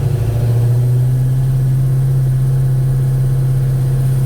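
Chevrolet 307 small-block V8 running steadily while the car is driven, as an even, loud drone. The valve train is loud and sounds like a diesel, a noise that turned out to come from mismatched valve springs and retainers.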